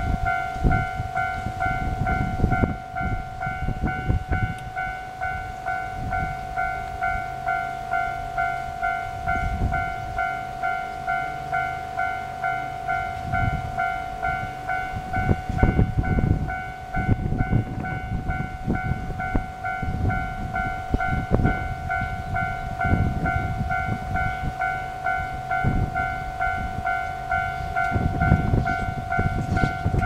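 Railway level crossing's electronic warning bell ringing in a steady, fast repeating ding-ding, with irregular low rumbling underneath.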